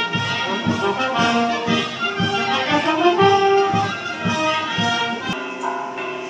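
Mexican brass band (banda de viento) with sousaphone playing a tune, with drum beats on a steady pulse. About five seconds in it cuts off abruptly and church bells ring.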